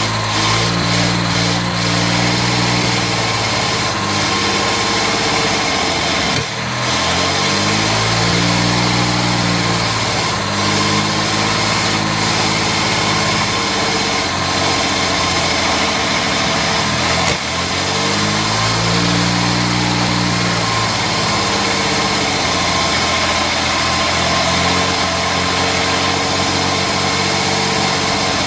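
Jaguar Mk2's XK straight-six engine running at idle, its speed slowly rising and falling, a surging idle. The owner takes it for ignition timing that is off or a cylinder not firing.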